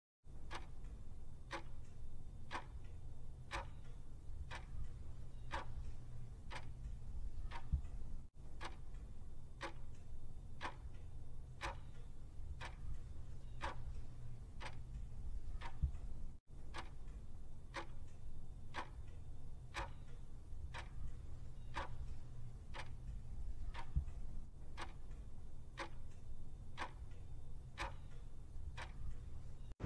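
Quiz countdown-timer sound effect: a clock ticking at an even rate as the 30-second answer time runs down.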